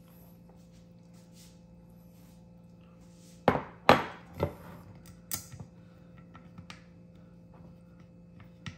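Hard kitchenware knocked and set down while cooking: three sharp knocks with a short ring, about three and a half seconds in, then a few lighter clicks and clinks, over a steady low hum.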